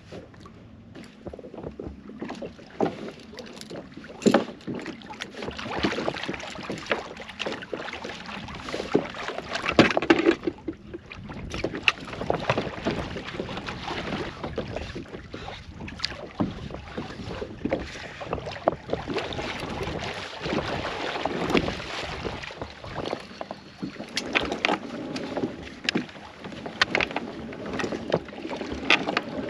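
Water slapping and sloshing against a fishing kayak's hull in choppy sea, with wind on the microphone and scattered knocks and clicks from line and gear being handled aboard.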